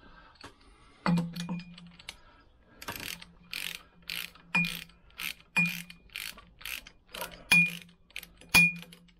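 Socket ratchet clicking in a run of short strokes, about two a second, while a cylinder head nut on a Lambretta scooter engine is run down; several strokes leave a brief metallic ring.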